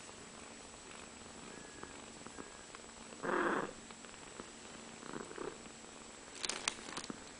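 Cats purring steadily as two kittens suckle from their mother. There is a brief louder noise about three seconds in and a few sharp clicks near the end.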